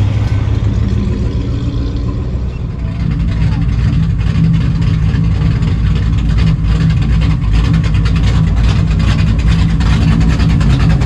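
Classic-car V8 engines rumbling at low speed as a line of cruise cars rolls slowly past, growing gradually louder as a supercharged Chevelle approaches.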